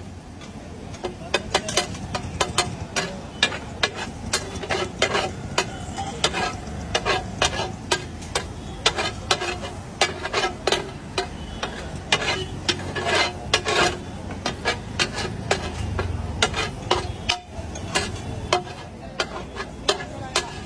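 Metal cooking utensil clanking and scraping on a hot pan at an irregular, busy pace, with food sizzling and a steady low hum underneath.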